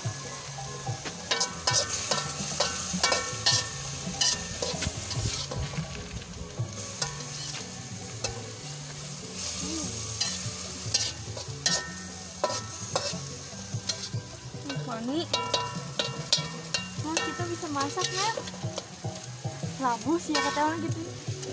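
Spatula stirring leafy greens in a wok: frequent clinks and scrapes of metal on the pan over a steady sizzle of frying.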